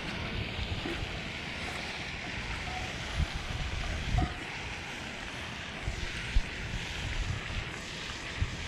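Wind buffeting the microphone, a steady rumbling hiss with a few short low thumps.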